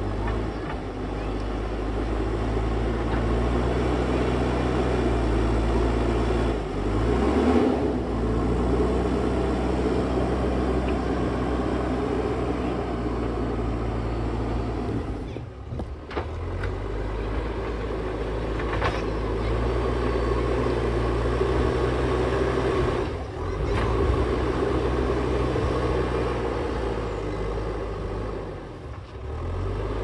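JCB backhoe loader's diesel engine running at working revs while digging, a steady low engine note whose pitch shifts now and then. The level drops briefly four times.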